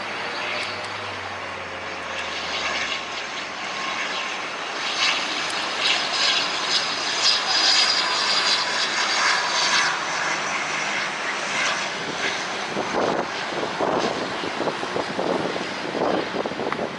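Airplane engines running as a plane passes, growing louder over the first few seconds and loudest around the middle. Wind buffets the microphone near the end.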